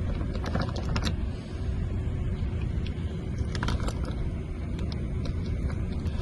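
Small metallic clicks and jingles of lock-picking tools and keys working an RV compartment lock, a cluster in the first second and a few more past halfway, over a steady low rumble.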